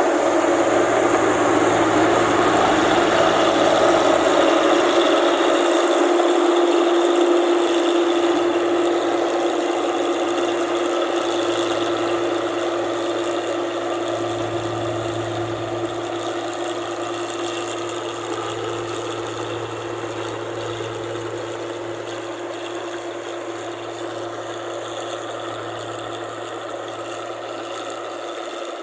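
Rice combine harvester's engine running with a steady hum, loudest about four seconds in and then growing gradually fainter.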